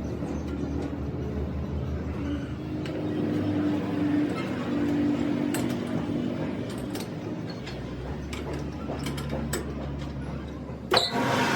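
A machine running steadily with a low hum and scattered metallic clicks and ticks, and one loud knock near the end, after which a louder, rougher running sound starts.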